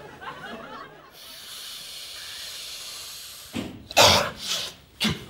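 A man snorting hard through a plastic drinking straw held to one nostril, a long steady hissing inhale of about two and a half seconds. About three and a half seconds in it breaks off into a loud, sudden burst, with a shorter one just before the end.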